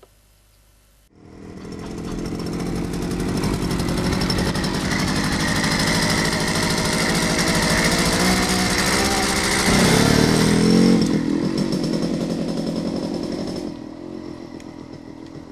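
Motorcycle engine running as the bike rides along. It cuts in abruptly about a second in, grows louder to a peak about ten seconds in, then fades away near the end.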